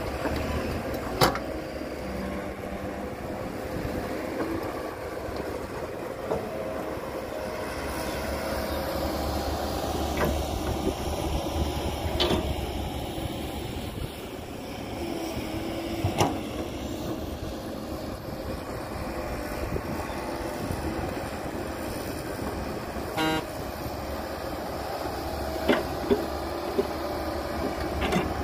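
Caterpillar 312B excavator's diesel engine running under load as it digs and swings soil into a dump truck, with a few sharp knocks spread through.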